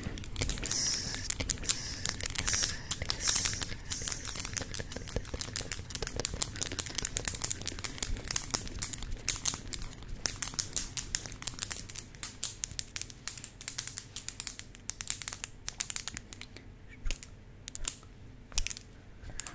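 Rapid, crisp ASMR trigger sounds very close to the microphone: a dense run of crackling clicks that thins out and grows quieter in the last third.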